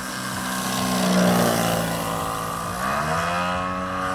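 Radio-controlled Edge 540 aerobatic model plane's engine and propeller running at speed on a low pass, loudest as it goes by about a second in. About three seconds in the pitch rises and then holds as the throttle opens for a vertical climb.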